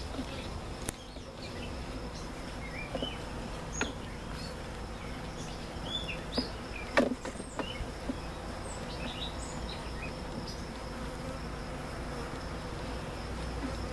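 Honey bees buzzing around an open hive, a steady many-voiced hum. A few light wooden knocks come as hive frames are handled, the loudest about seven seconds in.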